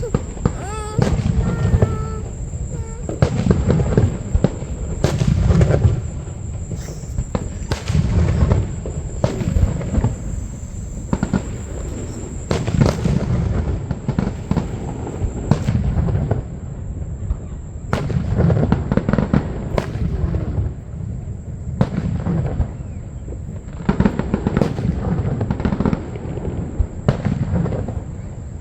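Aerial fireworks show: a steady run of deep booming shell bursts every second or two, mixed with sharp cracking reports.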